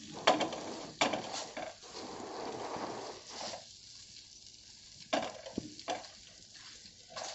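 A masher crushing a sizzling spice masala on a hot tawa, knocking against the pan several times over steady frying sizzle. The sizzle fades after about three and a half seconds.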